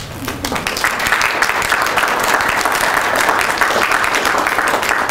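A small crowd applauding, the clapping building up over the first second and then holding steady.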